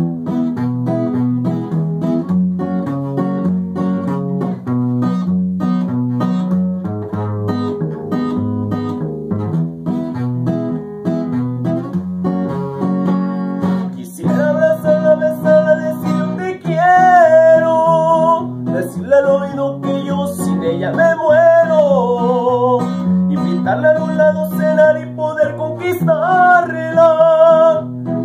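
Acoustic guitar strummed and picked alone as an instrumental passage. About halfway through, a man's voice comes in singing long, bending notes over the guitar.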